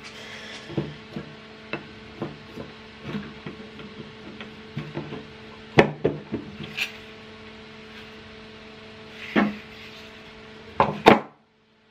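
Wooden pieces of a homemade bow saw frame knocking and clattering against each other and the wooden workbench as they are handled and fitted together. There are several sharper knocks about six seconds in, again around nine and a half seconds, and twice near the end. A steady low hum runs underneath.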